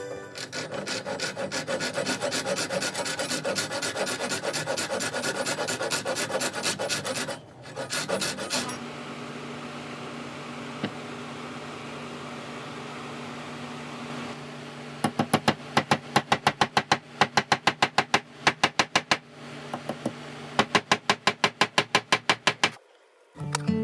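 Rapid back-and-forth abrasive strokes on the hammer's wooden handle, as in hand sanding, about five strokes a second. They come in three spells, with a steadier hiss in the middle.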